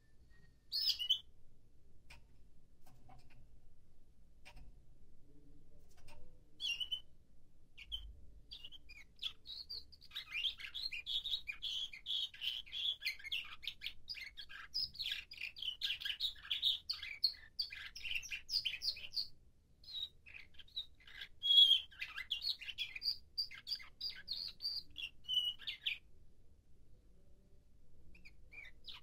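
Nightingale-song canary singing: a few short single calls, then a long run of rapid, trilled phrases lasting about ten seconds, a brief break, and more song that stops a few seconds before the end.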